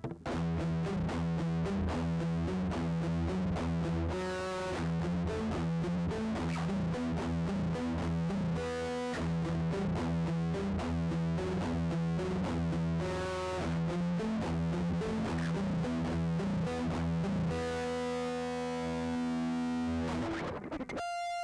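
Electric guitar through a LY-ROCK BE-OD Deluxe overdrive pedal, playing a distorted, repeating riff of low rhythmic notes. Near the end it settles on one held chord that rings for a few seconds, then stops briefly.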